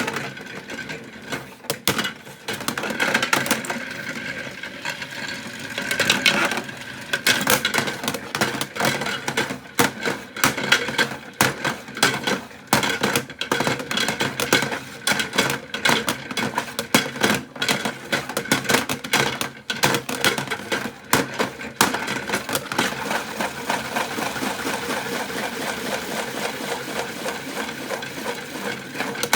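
Toy washing machine running with tripods tumbling in its drum: a steady small-motor whine under rapid, irregular clattering and knocking. The knocking evens out into a steadier rattle for the last several seconds.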